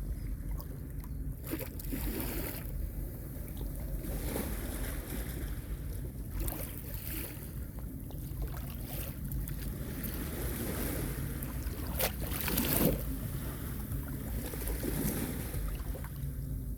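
Small sea waves washing onto a beach, surging every few seconds, with the loudest wash about twelve seconds in, over a steady low rumble of wind on the microphone.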